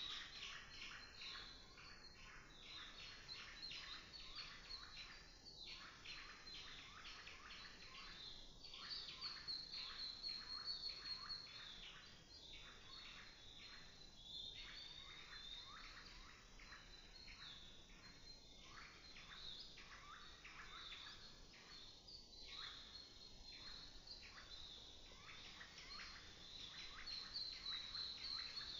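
Many small birds chirping and singing at once, a dense, unbroken stream of short, high calls with a faint background hiss.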